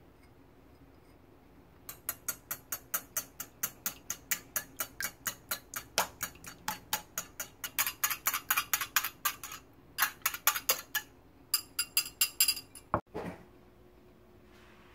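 Wire whisk beating eggs in a ceramic bowl, its wires clicking against the bowl in a quick even rhythm of about four to five strokes a second. The whisking starts about two seconds in and pauses briefly twice. Near the end comes a single dull knock.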